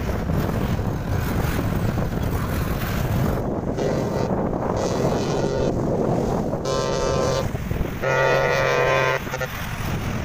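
Wind buffeting the microphone over breaking surf, then three steady horn blasts in the second half, the last one the loudest and about a second long.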